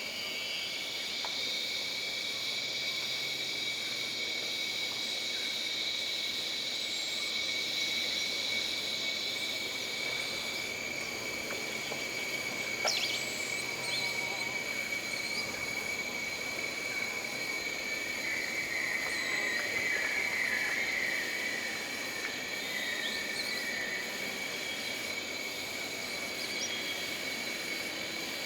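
Jungle ambience: a steady high-pitched insect drone, with a stronger insect chorus for the first ten seconds or so. A short sharp animal call comes about halfway through, and a warbling call about two-thirds of the way in.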